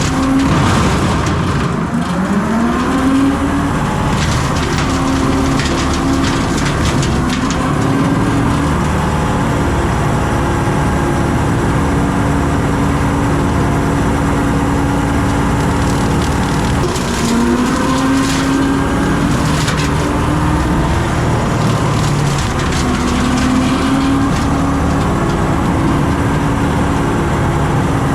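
John Deere 326E skid steer's diesel engine and hydraulic brush cutter running under load. A steady whine drops and climbs back up in pitch several times, and there are brief bursts of crackling as brush is cut.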